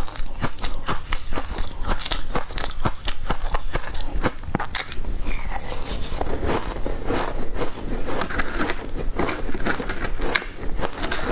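Close-miked crunching of ice as mouthfuls of shaved ice are bitten and chewed: many quick, crisp crunches following one another.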